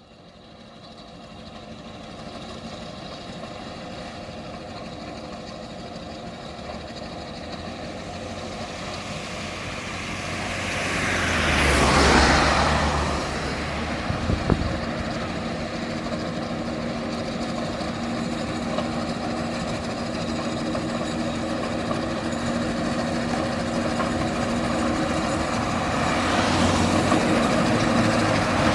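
A 1930 Fowler steam road roller, towing a living van and trailer, working up a hill as it draws nearer, its steady mechanical sound growing louder. About twelve seconds in, a loud rushing sound swells and passes, followed by a couple of sharp knocks.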